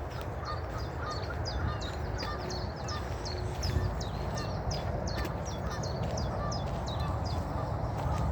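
A crowd of birds calling: many short, sharp high chirps, two or three a second, over a steady low rumble.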